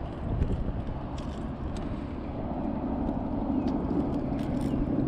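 Wind rumbling on the microphone, with scattered light metallic clicks of fishing pliers and lure hooks as a hook is worked free of a fish. A steady low hum comes in about two and a half seconds in.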